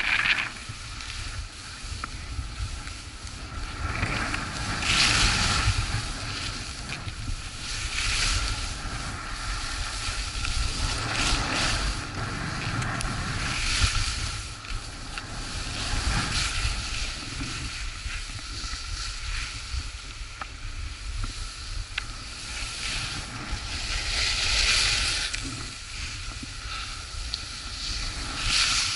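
Skis carving and scraping over packed snow: a hiss that swells with each turn every few seconds, over steady wind buffeting the microphone.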